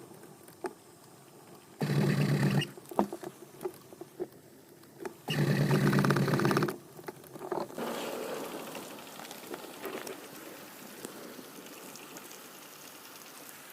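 VW Golf Mk2 1.6 diesel being cranked by its starter motor in two short bursts, about two seconds in and again around five seconds in, without the engine catching.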